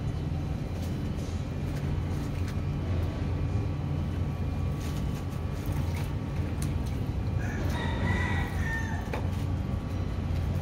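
A rooster crows once, about eight seconds in, a single drawn-out call over a steady low hum.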